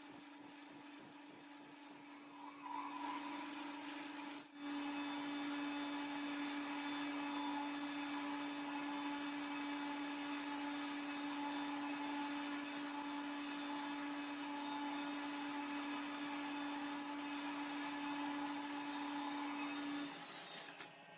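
A metalworking machine tool running steadily, a constant motor hum over a hiss. It gets louder about two and a half seconds in, cuts out for an instant at about four and a half seconds, and stops about a second before the end.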